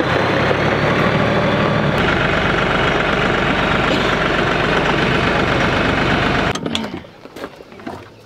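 Kioti DK5310 compact tractor's diesel engine running steadily, stopping abruptly about six and a half seconds in. After that come light metal clicks of a hitch pin being handled.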